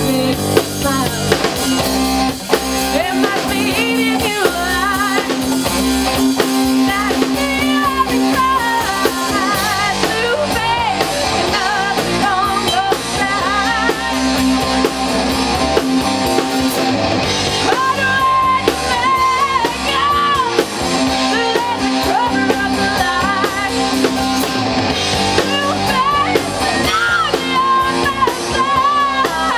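Live rock band playing: a woman singing over electric guitar and a drum kit.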